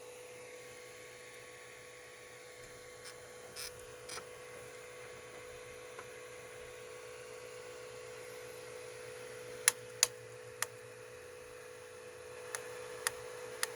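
Tronxy XY2 Pro Titan 3D printer running with a steady hum, broken by sharp knocks in small groups of two or three, about eight in all. With each knock the filament jerks back a little, and the owner wonders if the extruder is faulty.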